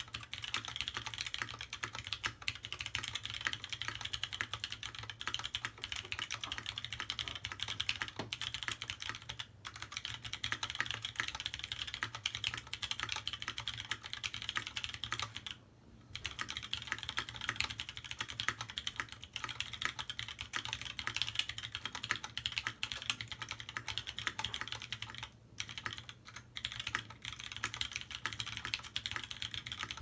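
Continuous typing on a Mech27 mechanical keyboard fitted with Zandas tactile switches (Zealio stems in Panda housings) and GMK Blue Alert keycaps: a dense stream of keystroke clacks. There is a brief pause about halfway through and two short breaks near the end.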